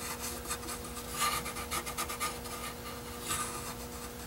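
Pencil scratching on a scrap aluminium sheet in short, uneven strokes, tracing an outline around a plastic part.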